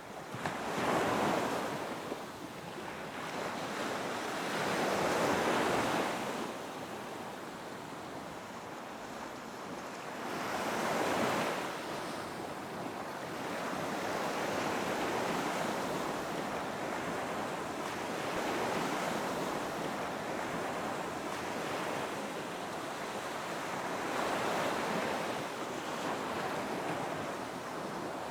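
Ocean surf: waves breaking and washing up the beach, swelling and ebbing every few seconds, with some wind on the microphone.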